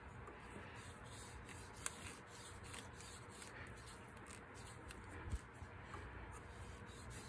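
Faint rubbing and handling noise, with a couple of small clicks, as hose pliers twist an old coolant hose on its corroded fitting.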